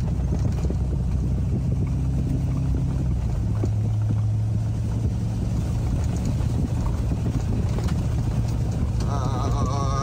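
A four-wheel-drive truck running steadily on a gravel driveway, a low engine and road hum whose pitch shifts about three and a half seconds in. A wavering higher tone joins near the end.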